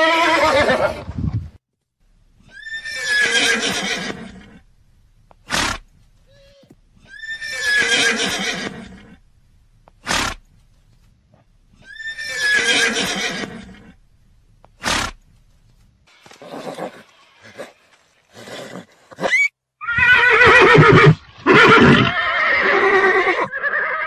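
Horse neighing: a series of whinnies of about two seconds each, three of them spaced about five seconds apart, with short sharp sounds between, then a longer run of neighing near the end.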